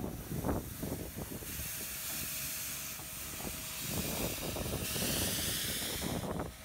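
Beyer Peacock W class steam locomotive hissing steam: a steady hiss sets in about a second and a half in and grows louder for a second or so near the end, over a low rumble.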